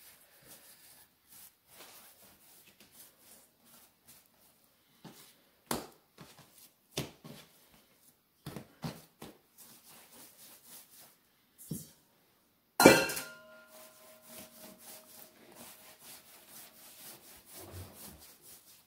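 Hands rolling and patting bread dough into strands on a wooden countertop: soft scattered thumps and rubbing. About thirteen seconds in, a sharp knock rings on for a few seconds as it dies away.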